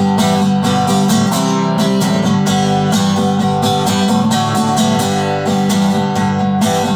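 Instrumental break of a country song: strummed acoustic guitar with a steady rhythmic pulse and no singing.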